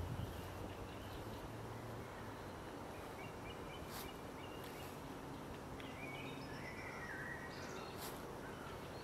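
Outdoor spring ambience: a steady background hiss with small birds singing. One bird's warbling phrase steps down in pitch about six to eight seconds in. Two brief sharp clicks come about four seconds in and again near the end.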